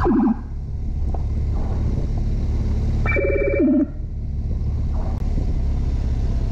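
Road and engine rumble from a moving escort vehicle, cut by two short electronic siren blips: one right at the start that falls in pitch, and one about three seconds in that holds for a moment and then drops.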